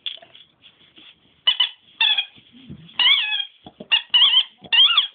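Dog making short, high-pitched squeaks in place of barking, about six of them over the last three and a half seconds, each bending up and down in pitch.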